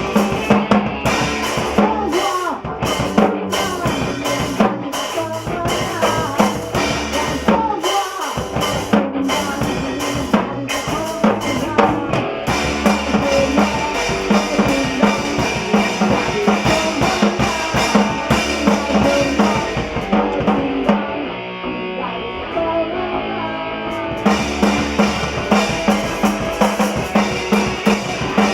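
A band playing live in a studio, with a drum kit's bass drum and snare keeping a steady beat under bending melodic lines. Near the end the drums drop away for about three seconds, then come back in.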